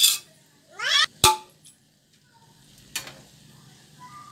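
A spoon scraping and stirring rice in a steel pot: scraping strokes at the start, a short rising squeal about a second in, then a sharp metallic clink, with one more scrape near the end.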